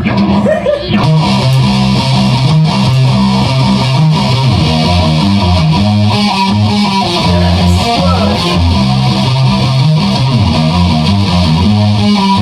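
Guitar music with a bass line stepping through low notes under an electric guitar, playing continuously without breaks.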